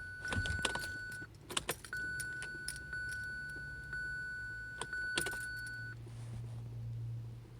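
Car keys jangling and clicking, with a steady high tone that breaks off about a second in, comes back and stops near six seconds. A low hum swells near the end.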